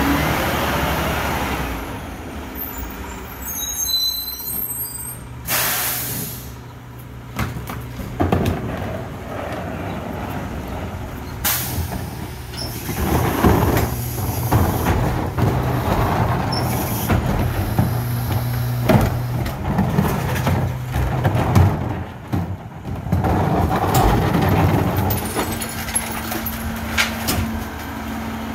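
Rear-loader recycling truck at work: the diesel engine runs steadily, an air brake lets out a sharp hiss about five seconds in, and a plastic recycling cart clatters and knocks as it is tipped and emptied into the rear hopper. Near the end a new steady hum sets in as the hydraulics start.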